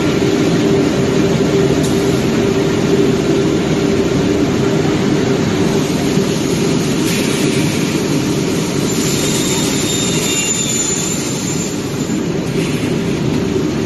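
CNC panel saw machinery running steadily with a constant low hum. A high whine comes in about nine seconds in and stops about three seconds later.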